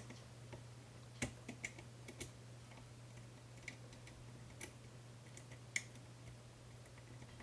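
Faint, scattered clicks of a lock pick working the pins inside a 5-pin Medeco cam lock, about half a dozen over several seconds, over a steady low hum.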